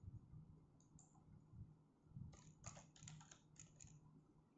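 Faint clicks of calculator keys being pressed: a couple of taps about a second in, then a quick run of about ten keypresses from about halfway through, entering a division.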